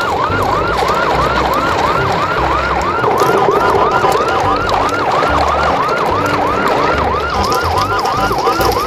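An electronic siren sounding a fast yelp: a rising sweep that repeats about three to four times a second without a break.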